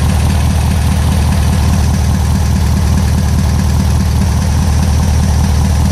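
Carbureted four-cylinder engine with electronic ignition idling steadily, an even low hum with no change in speed.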